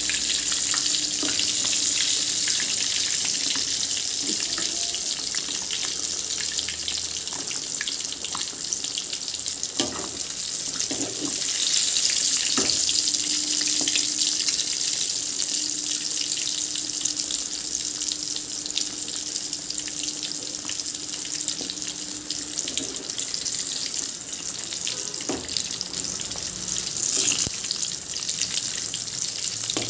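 Hot oil sizzling and bubbling steadily as egg-and-prawn kola balls deep-fry in a pan, with a few light knocks scattered through.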